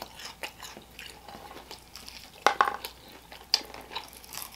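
Close-up chewing and biting of a crispy fried chicken drumstick: soft crunches and wet mouth clicks, with two sharper crunches about two and a half and three and a half seconds in.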